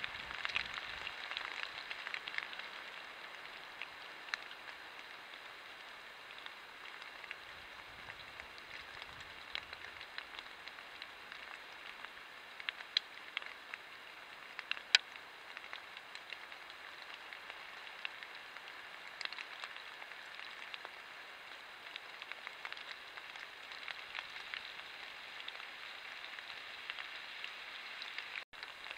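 Steady patter of light rain in the woods, with scattered sharp ticks, heard through a trail camera's microphone.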